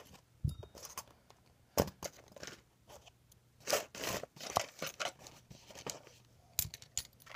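Small steel hand tools (hemostat clamps, scissors, screwdrivers) being picked up and set down on a cloth-covered table: irregular light clicks and soft knocks.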